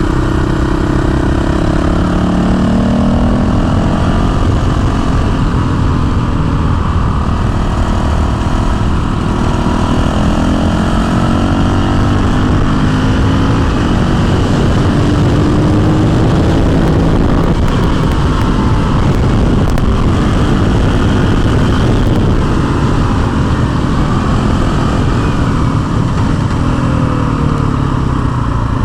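Honda CRF450L's single-cylinder four-stroke engine running hard at speed. Its pitch repeatedly climbs as it accelerates and drops as the revs fall between pulls.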